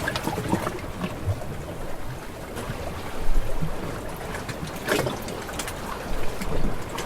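Stock water sound effect: a steady wash of sloshing, trickling water, as around a small boat, with a few small knocks.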